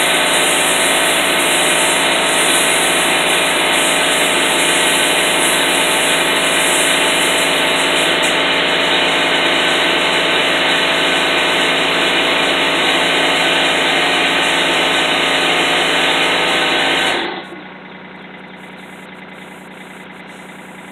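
Air compressor running steadily with a loud motor drone and airy hiss, then cutting out about 17 seconds in, leaving a much quieter steady hum.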